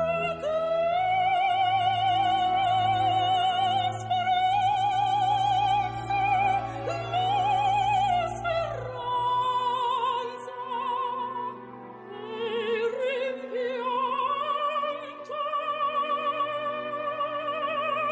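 Operatic singing: one voice holding long notes with a wide vibrato, over a low sustained accompaniment.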